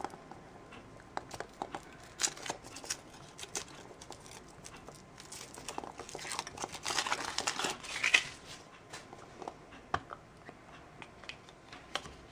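Foil wrapper of a Kinder Surprise egg crinkling and tearing as it is unwrapped by hand, with scattered small clicks and taps; the crinkling is densest about two-thirds of the way through.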